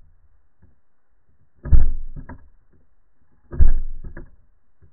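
Pellet airgun pistol fired twice underwater, heard through the water: each shot a sudden muffled bang that dies away over about half a second, followed by a sharper click about half a second later. The two shots come about two seconds apart.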